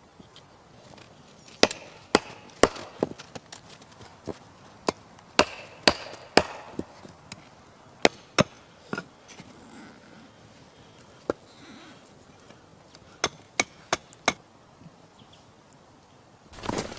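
Wood being chopped: about twenty sharp, irregular strikes in loose runs, with a pause partway through. A louder rustling starts near the end.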